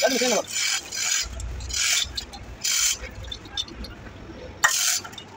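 Short scraping, rasping sounds repeating about every second, from the heavy metal gearbox housing being worked into position against the engine. A brief voice is heard at the very start.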